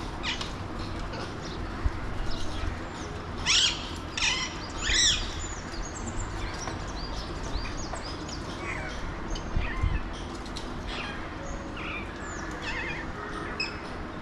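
Alexandrine parakeets calling: three loud, harsh arched calls in quick succession a few seconds in, followed by many shorter, higher chirps and squawks scattered through the rest.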